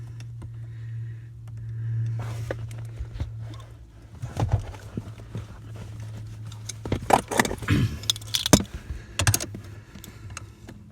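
Metal clinks and rattles of a wrench working the lock nut down on a newly installed brake light switch, in scattered bunches over a steady low hum.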